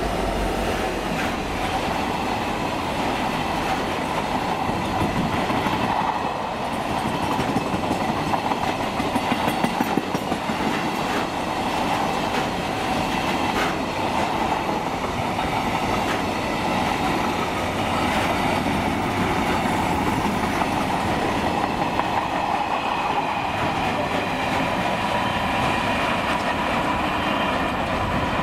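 Container freight wagons rolling past at speed, their wheels clattering rhythmically over the rail joints, with a faint steady ringing tone from the wheels. The clatter grows louder and sharper for a couple of seconds around eight to ten seconds in.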